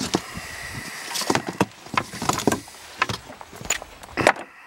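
Sheet of cardboard being slid and pushed into a crawlspace opening: scraping and a string of irregular knocks, the sharpest near the end.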